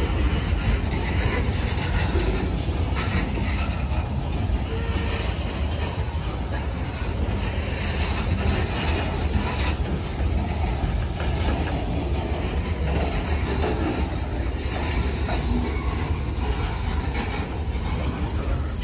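Union Pacific train rolling past, a steady rumble of wheels on rail that holds unchanged throughout.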